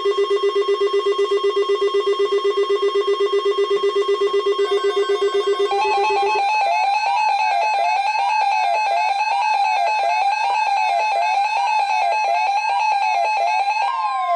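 Electronic alert alarms from weather alert radios. A rapidly pulsing buzzer tone stops about six seconds in, and a siren-like warble rising and falling about once a second takes over. A brief steady beep joins near the end.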